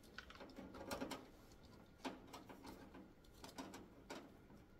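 Faint, scattered clicks and light rustles of insulated wiring being handled and pulled through a tanning bed's ballast compartment.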